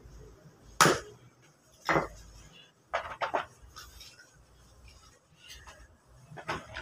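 Lumps of wood charcoal clinking and knocking together as they are handled and dropped into a sack: a sharp knock about a second in, another near two seconds, a quick cluster around three seconds, and one more near the end.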